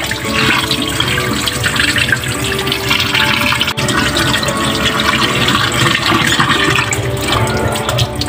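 Tap water running and splashing into a kitchen sink as eggplants and then diced pork in a bowl are rinsed, with a brief break about four seconds in.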